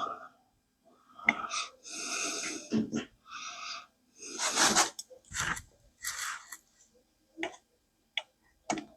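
A man's short, strained breaths and wheezy exhalations in separate bursts as he stretches to reach an awkward spot, with a few light clicks near the end.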